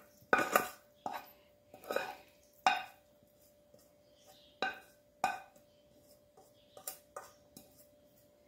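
Metal spoon knocking and scraping against a metal bowl while chicken filling is emptied out: about ten irregular sharp clinks, each with a short ring, over a faint steady hum.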